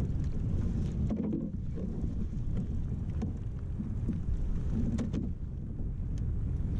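Wind buffeting the microphone in a steady low rumble, with a few light knocks.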